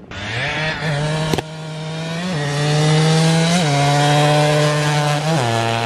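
Two-stroke dirt bike engine accelerating hard, its pitch climbing and then dropping at each of three gear changes, about two, three and a half and five seconds in.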